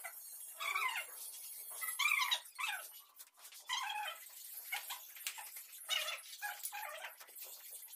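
Short, high-pitched animal calls, repeated about once a second.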